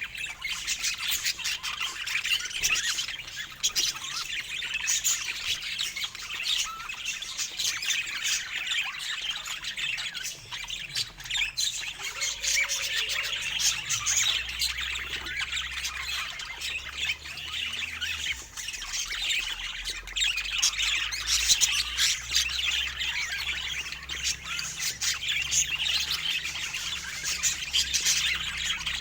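Budgerigars chattering continuously, a dense mix of rapid warbling chirps and short squawks.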